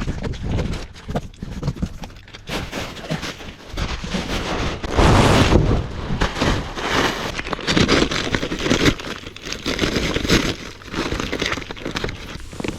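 Irregular rustling and crackling noise, with a louder burst about five seconds in.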